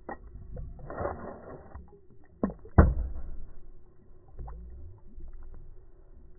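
Water sloshing and splashing against a kayak hull as a released Murray cod swims away beside it. Small knocks sound through it, with two sharp knocks on the hull a little before halfway, the second the loudest.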